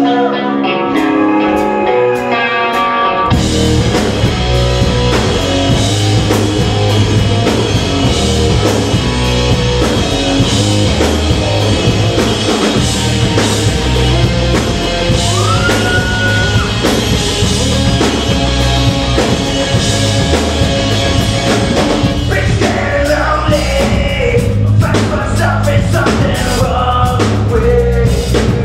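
Live hard rock band playing loud: distorted electric guitar, bass and drum kit. The guitar plays alone at first, then the drums and bass come in about three seconds in.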